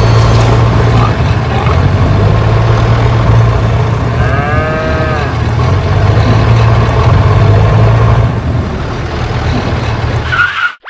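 A loud, steady, engine-like rumble with a strong low hum. About four seconds in comes one short pitched call that bends up and then down, and the rumble cuts off abruptly just before the end.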